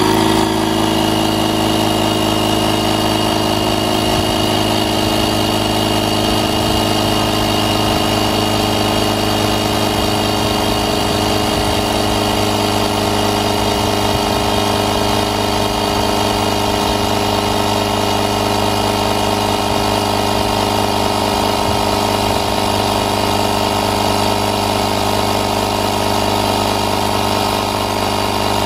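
ASAKA 12V portable electric tire inflator switching on and running steadily, its air compressor pumping a car tire up from 30 toward a preset 35 psi.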